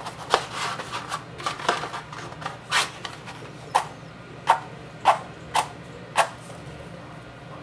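Handling noise from a small metal fuel bottle and a box of matches: a run of about ten sharp clicks and taps, the later ones about every half second, stopping shortly before the end.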